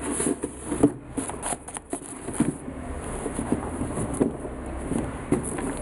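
Hands handling Adidas Yeezy Boost 350 knit sneakers and their cardboard shoe boxes: irregular rustling with light knocks and clicks.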